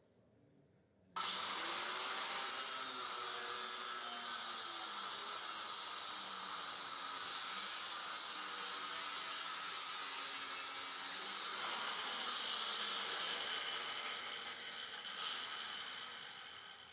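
Power tool cutting a scroll compressor's steel shell. It starts suddenly about a second in, runs steadily at high speed, then winds down over the last few seconds.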